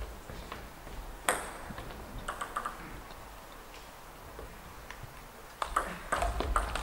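Table tennis ball clicking against bat and table: a single sharp tick about a second in, a quick few bounces a second later, then the serve and the first strokes of a rally as a run of clicks near the end.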